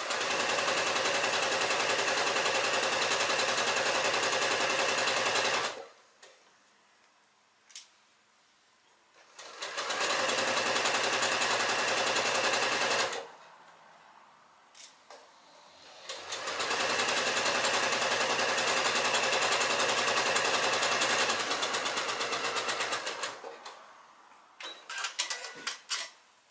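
Domestic electric sewing machine stitching a straight seam through fabric. It runs steadily in three stretches of several seconds each, stopping briefly between them, with a few small clicks in the pauses and near the end.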